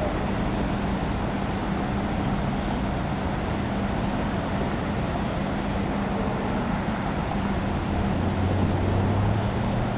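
Steady drone of vehicle engines running and roadway traffic, with a constant hum. A second, deeper hum joins near the end.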